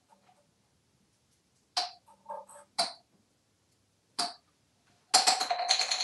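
An African grey parrot's small plastic toy pieces knocking on a tile shower floor: three sharp knocks with a brief ringing tail, then a quick clattering run of knocks lasting about a second near the end.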